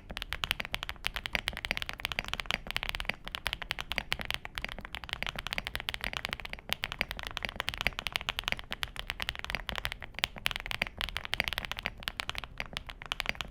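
Fast typing on a mechanical keyboard fitted with HMX Yogurt linear switches: a rapid, continuous run of sharp keystroke clacks, several a second.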